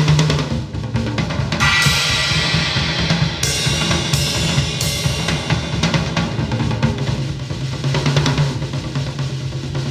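Music driven by a busy drum kit over a steady low bass note, with a run of cymbal crashes between about two and five seconds in.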